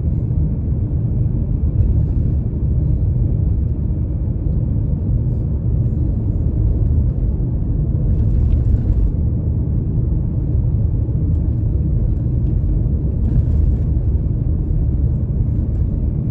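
Steady low road rumble of a car in motion, heard from inside the cabin: engine and tyre noise at a constant cruising speed.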